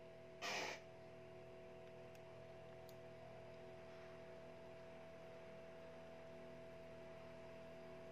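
Near silence: room tone with a faint steady electrical hum, broken by one short exhale about half a second in.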